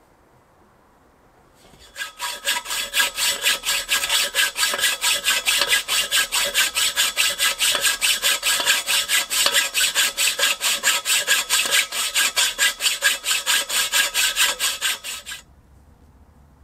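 Hacksaw cutting through a metal fence post in fast, even back-and-forth strokes, about five a second, with a ringing rasp. The sawing starts about two seconds in and stops abruptly a second before the end.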